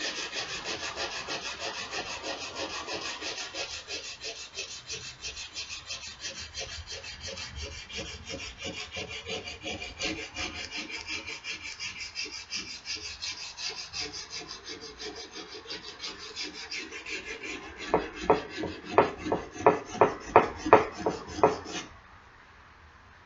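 Sandpaper rubbed back and forth by hand on a rusty steel axe head in quick rasping strokes. Near the end the strokes turn slower and louder, then stop suddenly.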